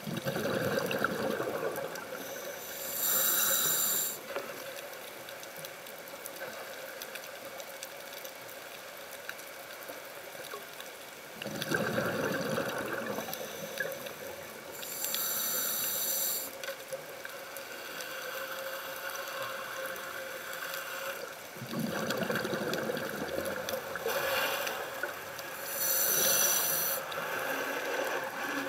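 Scuba diver breathing through a regulator underwater: three slow breaths about eleven seconds apart, each a rush of exhaled bubbles followed a few seconds later by a hiss of drawn air.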